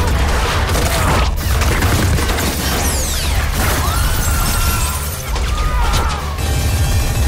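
Action-film soundtrack: a loud score with a heavy, steady low end, overlaid with crashes, shattering and clanking mechanical impacts. A few falling whistle-like sweeps come about three seconds in.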